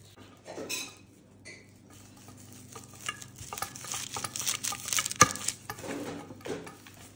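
Wooden rolling pin rolling out dough on a paper-lined board: scraping with scattered clicks, busiest in the second half, and one sharp knock about five seconds in.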